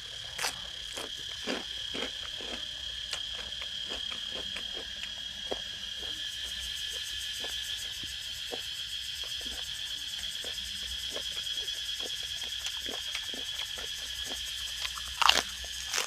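A chorus of cicadas drones steadily with a shrill, pulsing buzz throughout. Over it come close, irregular crunching clicks of someone chewing food.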